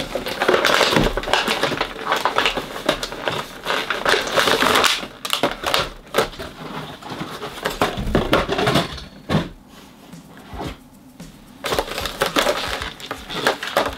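Action-figure packaging being opened by hand: a plastic tray and cardboard box crinkling, crackling and scraping in irregular bursts, with a quieter spell near the end.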